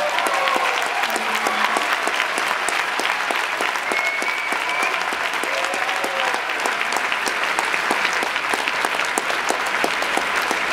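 Concert audience applauding steadily right after a sung song ends: dense, even clapping.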